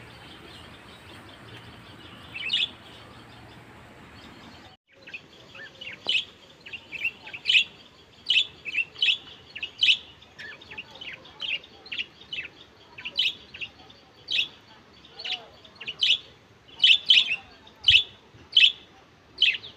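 Lovebirds calling with short, high chirps, one at a time: only a couple in the first few seconds, then a steady run of about one or two a second after a brief break about five seconds in.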